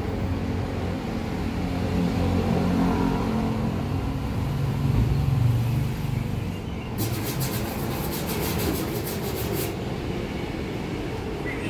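Gas welding torch flame burning steadily against the fuel tank with a low rumbling hiss. A stretch of fast crackling runs from about seven to nearly ten seconds in.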